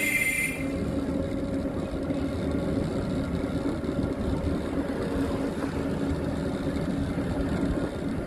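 Steady hum of a vehicle's motor with road noise, heard while riding along a road, with a short high beep at the very start.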